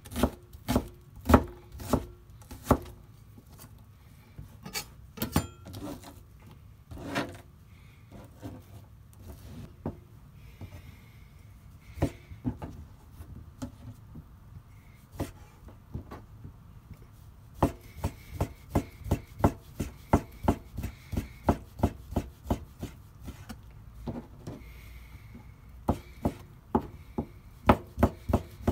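Kitchen knife chopping on a cutting board: a few strokes through the last of a diced onion at the start, scattered cuts in the middle, then from a little over halfway a steady run of quick chops, about two a second, slicing red wieners into rounds.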